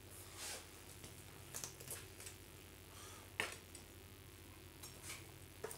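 Faint handling of a deer carcass on a wooden chopping board: a few soft ticks, with one sharper click about three and a half seconds in.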